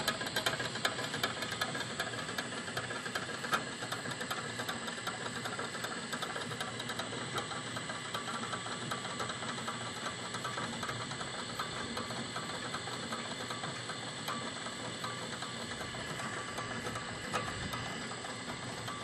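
Kite-line winch running steadily as line pays out over its capstan, a continuous mechanical sound with fine rapid ticking from the gears.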